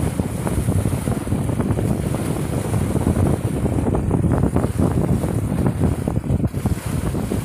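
Wind buffeting the microphone, over small waves slapping and splashing against concrete breakwater blocks.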